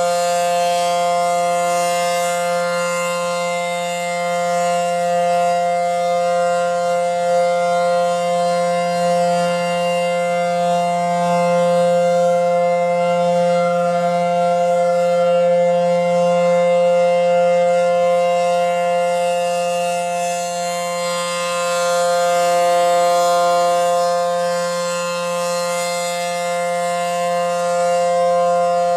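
ACA Howler outdoor warning siren sounding a steady, unwavering tone with many overtones. Its rotating horn makes the loudness swell and fade slowly.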